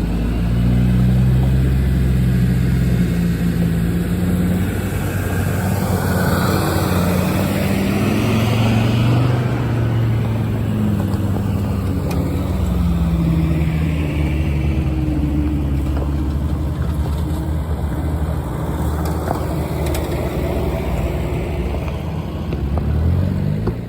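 4x4's engine driving over a rough off-road track, its pitch rising and falling as the throttle is worked, over a steady background of tyre and track noise.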